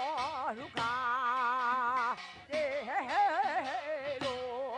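A solo voice singing a Jindo folk song. It holds long notes with a wide, slow vibrato, in phrases broken by short pauses about half a second and two seconds in.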